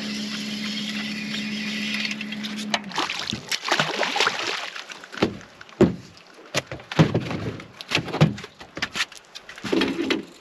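A steady hum that stops about three seconds in, then a run of irregular splashes and slaps as a hooked fish thrashes at the surface beside the boat and is swung aboard.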